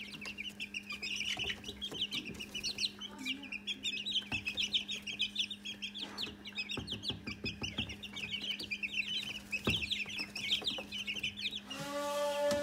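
A brood of young chicks peeping continuously, many short high chirps overlapping. A steady buzzing hum comes in near the end.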